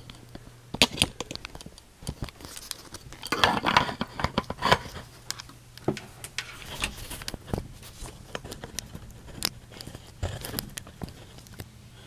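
Handling noises: scattered clicks, knocks and rustles, as of a camera being moved and set down and things being handled, over a faint steady low hum. No siren is sounding.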